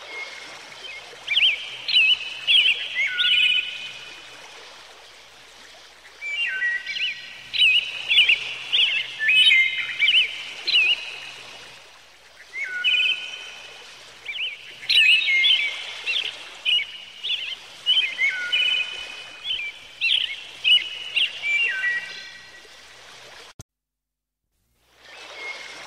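A songbird singing runs of quick whistled notes with sharp upward and downward slides, in three long phrases with pauses between, over a steady background hiss. The sound cuts off suddenly near the end, then starts again.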